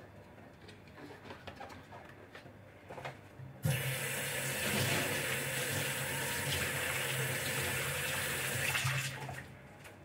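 Kitchen tap turned on about three and a half seconds in, water running into the sink as a glass refrigerator shelf is rinsed, then shut off after about five seconds. Before it, light clicks and knocks of the shelf being handled.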